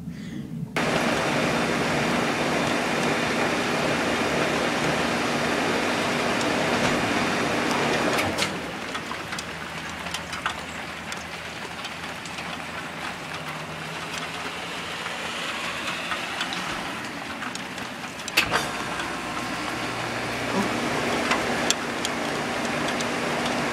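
Rheem heat pump running in heat mode: a steady rushing noise over a low hum. The rushing eases off about eight seconds in, and after a sharp click about eighteen seconds in it picks up again.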